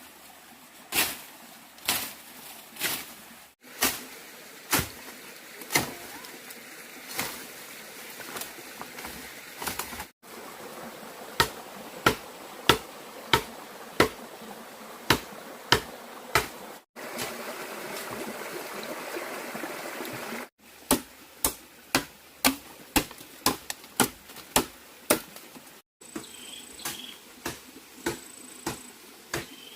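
Repeated sharp blows of a hand tool striking wood, coming about one to two a second, in short stretches broken by abrupt cuts. A steady hiss sits under the blows for a few seconds past the middle.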